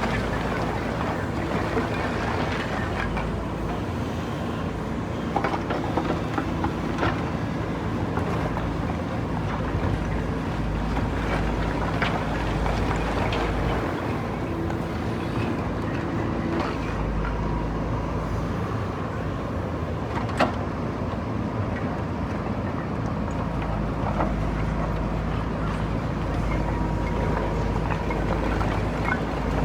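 JCB backhoe loader's diesel engine running steadily under work, with a few sharp knocks and clanks scattered through, the loudest about two-thirds of the way in.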